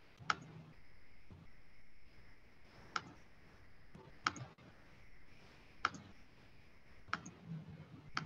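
Computer mouse clicking: about six single, faint clicks spaced one to two seconds apart, as a screen share is set up.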